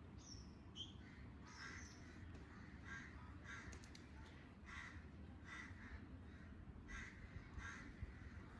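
Crows cawing faintly in a run of short, harsh calls about a second apart, with a few higher bird chirps near the start.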